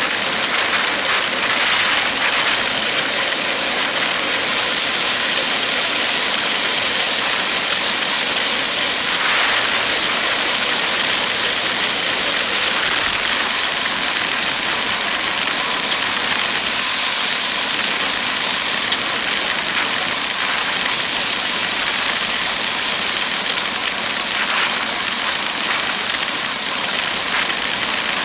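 Steady rushing hiss of wind and tyre-on-road noise from a road bike riding at speed on a highway, with wind buffeting the microphone and traffic passing. The hiss swells slightly a few times.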